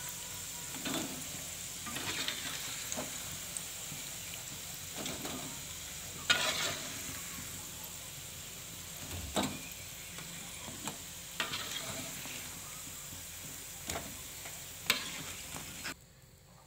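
Bakwan vegetable fritters deep-frying in hot oil: a steady sizzle, with occasional clicks and scrapes of a metal spatula against the pan as the cooked fritters are turned and lifted out. The sizzle cuts off suddenly near the end.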